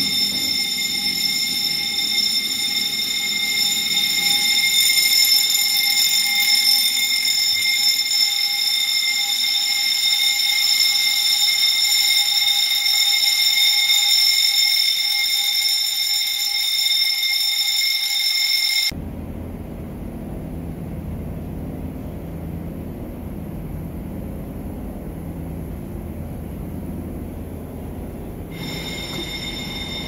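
Fire alarm bell ringing continuously, set off by the ceiling smoke detector under an aerosol smoke test. It stops abruptly about 19 seconds in, and a lower steady rumbling noise takes over.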